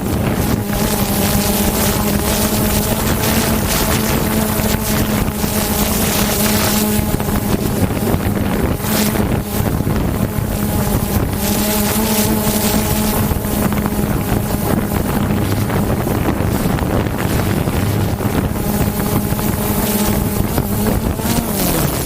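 Multirotor drone's propellers humming steadily, with wind rushing over the microphone; the hum's pitch drops near the end.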